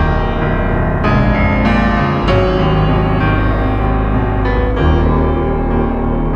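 Background instrumental music: sustained keyboard chords over a steady low bass, with new chords struck about a second in, a little after two seconds, and near five seconds.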